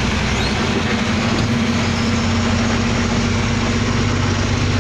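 A truck's diesel engine running steadily as it drives, heard from inside the cab over a steady hiss of road noise.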